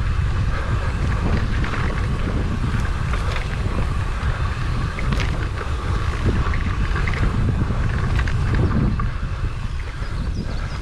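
Electric mountain bike riding a wet, muddy bridleway: a steady low rumble of wind and ride buffeting on the microphone, with scattered knocks and rattles from the tyres and bike over stones.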